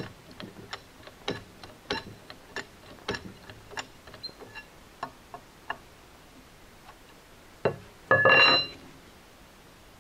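Hydraulic long ram's hand-pump handle being worked to raise the ram during oil bleeding: a run of sharp metallic clicks, several a second, fading out about six seconds in. About eight seconds in comes one hard click and then a brief, louder metallic rattle.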